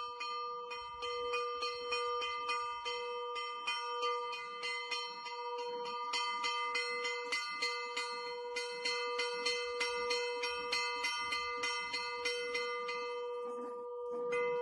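A church bell rung over and over in quick, even strikes, its tones ringing on between strokes, as a dog tugs the bell rope with its teeth.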